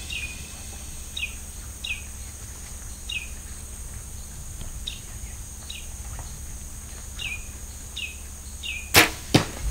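A bird repeating a short down-slurred chirp every second or so over a steady high insect drone. Near the end a Mathews Creed compound bow is shot: one sharp, loud crack, then a second, quieter crack a moment later.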